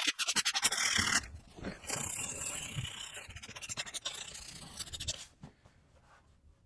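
80-grit sandpaper rubbed by hand over cured Bondo wood putty on a wooden baseboard: quick back-and-forth scratching strokes, fast at first, then steadier, stopping about five seconds in.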